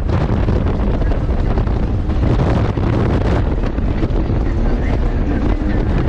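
Heavy wind buffeting the microphone over the steady running of a Kawasaki STX-160 jet ski and the rush of water under its hull while underway.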